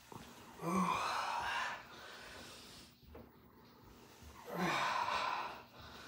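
A man's forceful exhalations with the strain of each rep of cable rope pullovers: two hard, noisy breaths out, each starting with a short grunt, about four seconds apart.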